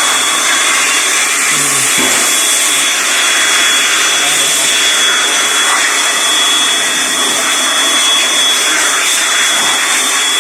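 Loud, steady rush of blown air with a constant high whistle on top, from a motor-driven blower or air jet, typical of blowing dust off brake parts.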